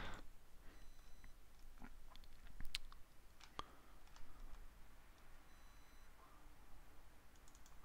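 A few faint, scattered computer mouse clicks over a low room hum.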